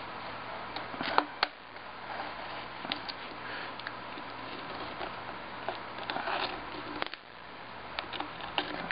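Razor blade scraping and ticking along the soldered lead edging and glass of a display case as tape residue and glue are trimmed off: scattered short scrapes and clicks, with a sharp click about a second in, over a steady hiss.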